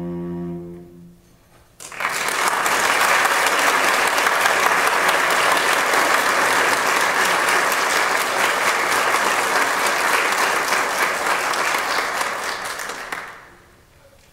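The last held note of the music dies away, then an audience applauds, clapping steadily for about eleven seconds before fading out near the end.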